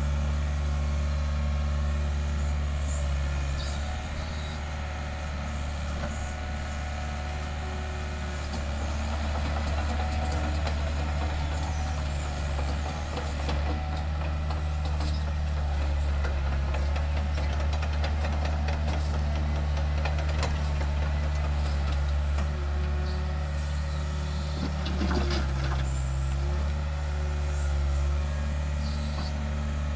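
Doosan DX55 mini excavator's Yanmar 4TNV diesel engine running steadily under digging load, with a few short knocks from the bucket working the dirt and rock.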